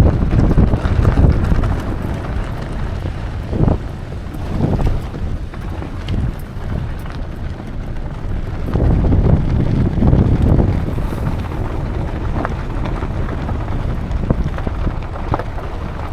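Wind buffeting the microphone: a gusting low rumble, heaviest at the start and again about halfway through, with a few soft knocks.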